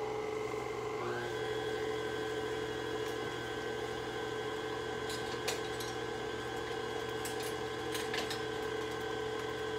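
Electric tilt-head stand mixer running steadily, its beater mixing a banana bread batter of mashed bananas, oil, brown sugar, vanilla and eggs; its pitch steps up about a second in. A few faint clicks sound in the middle and near the end.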